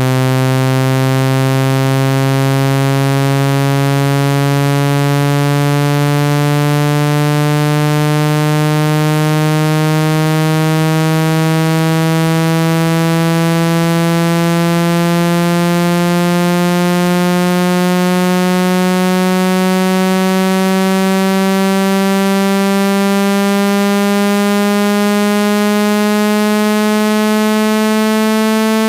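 Loud, steady electronic test tone, rich in overtones, gliding slowly upward in pitch: a speaker-cleaning sound meant to shake water and dust out of a phone speaker.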